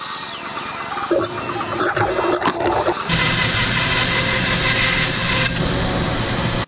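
Bandsaw running and cutting through a red oak board, a steady machine noise of motor and blade in the wood. The sound changes about three seconds in, becoming denser with a low hum.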